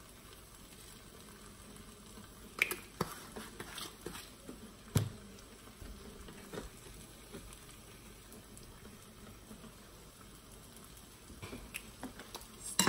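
Zucchini slices sizzling steadily in a frying pan, with a few light knocks and clicks of utensils or containers between about two and five seconds in.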